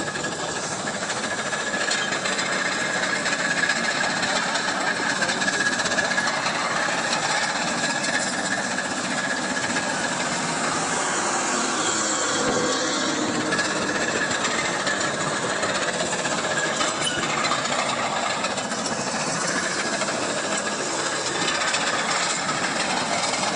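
A machine's engine running steadily, with a faint constant whine through the first half.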